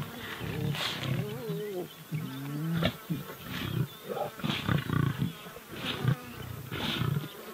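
Lions calling: a string of short calls, about one a second, some gliding up and down in pitch.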